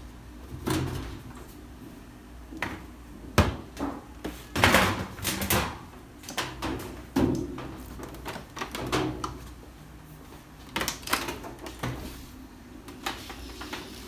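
Irregular knocks, clunks and scrapes of a top-load washing machine's sheet-metal cabinet and panel being handled as the machine is tipped over onto its side, with the loudest cluster of clatter about halfway through.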